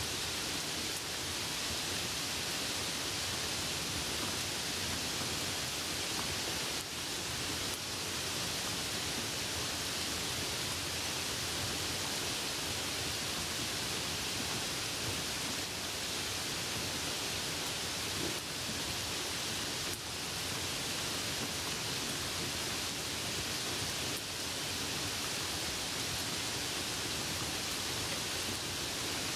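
Rain heard during a drive on a wet road: a steady, even hiss with no pitch, with one or two brief small dips.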